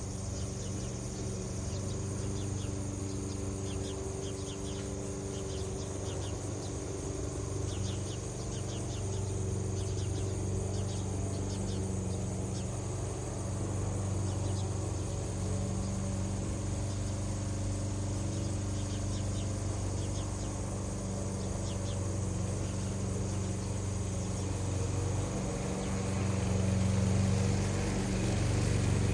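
Insects chirping in short, repeated trills over a steady low hum.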